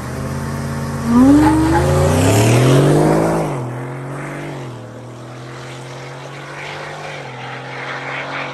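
Whipple-supercharged Ford F-150 with a Coyote 5.0 V8 accelerating hard away from standstill: about a second in, the engine note jumps in loudness and climbs in pitch for two seconds. It drops back about three and a half seconds in, then holds a lower, steady note, quieter, as the truck moves off down the road.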